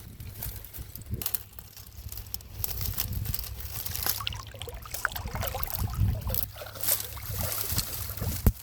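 Water trickling and sloshing, with scattered small clicks and knocks and a sharp click near the end.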